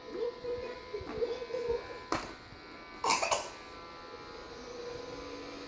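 Vacuum cleaner motor running with a steady electric hum, broken by two short rushing bursts about two and three seconds in.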